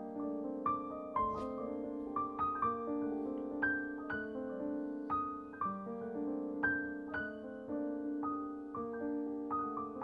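Background piano music: a slow melody of notes struck about twice a second over held lower notes.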